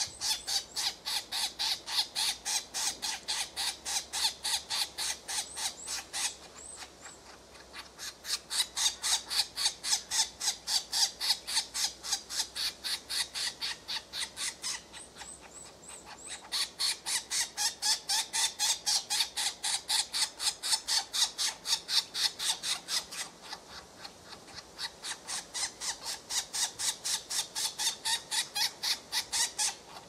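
European green woodpecker nestlings begging from the nest hole. The call is a long rhythmic run of harsh repeated notes, about four a second, in bouts broken by short quieter lulls about 6, 15 and 23 seconds in.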